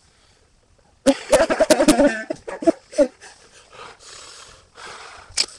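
A girl's wordless distressed vocal sounds, a "major meltdown": pitched whines and cries starting about a second in, then breathy huffing.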